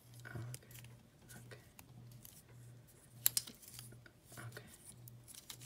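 Plastic Transformers action figure being handled: small clicks and rubbing of its plastic parts and joints, with two sharp clicks a little after three seconds in.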